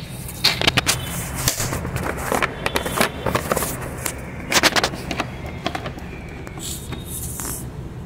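Plastic jar of rabbit food pellets being handled, its screw lid worked: a run of sharp clicks and scrapes, loudest about half a second in and again just before the middle, thinning out near the end.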